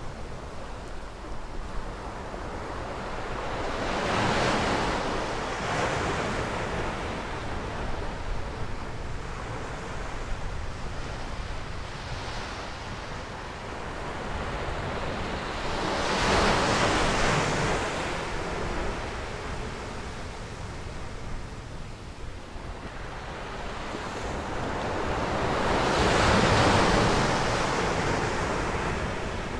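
Surf breaking on a sand beach, the wash swelling and falling away three times, about every ten seconds, over a steady low rumble of wind on the microphone.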